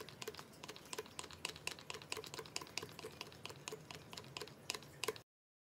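Plastic lotion pump dispenser pressed over and over, rapid clicking as lotion squirts out, the presses coming several a second. It stops abruptly near the end.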